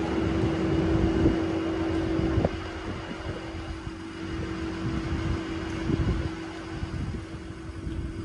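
A steady motor hum with soft, irregular low knocks and rustles from a burger being eaten and handled. The hum is louder for the first two and a half seconds, then drops and carries on more faintly.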